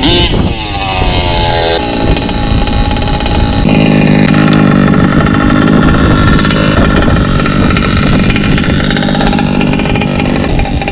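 Small 29cc two-stroke petrol engine of a large-scale RC truck, running rich while it is still being run in. Its pitch falls over the first couple of seconds as the truck slows, then it runs loud and steady close by for the rest.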